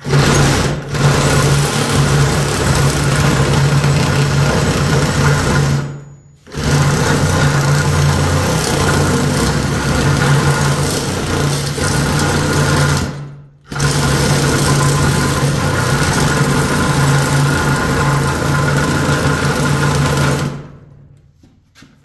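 Cordless reciprocating saw cutting through the end of an air-conditioner coil, its blade sawing the copper tubes and aluminium fins. It runs in three long cuts, stopping briefly about six seconds in and again near fourteen seconds, and falls silent just before the end.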